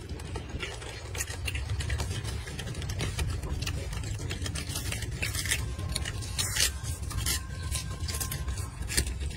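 A young monkey chewing and tearing crisp lettuce leaves: irregular crunches and leafy crackles, a sharper snap a little after halfway, over a steady low rumble.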